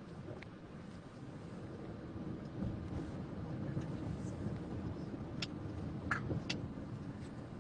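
Car cabin noise while riding along: a steady low rumble of road and engine, with a few faint clicks in the second half.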